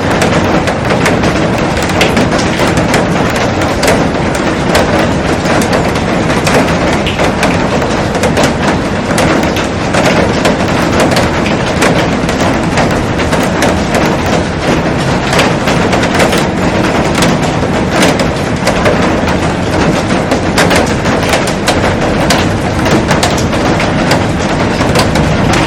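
Heavy rain falling steadily, a dense continuous hiss with many sharp ticks of drops striking a glass roof.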